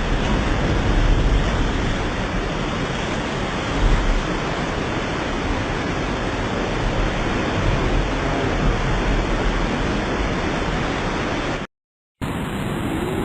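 Torrential rain with rushing water: a loud, steady rush of noise. About twelve seconds in it cuts out for half a second, then resumes.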